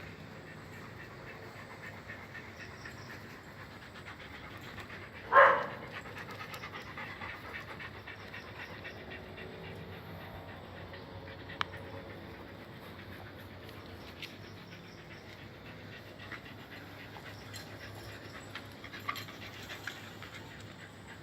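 Dog panting steadily, with one loud, short sound about five seconds in and a few faint clicks later.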